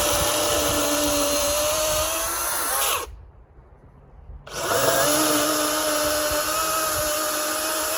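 DeWalt 16-inch 60-volt battery chainsaw running in two bursts of about three and four seconds, a second and a half apart, each spinning up with a quick rising whine and cutting off sharply as the trigger is released.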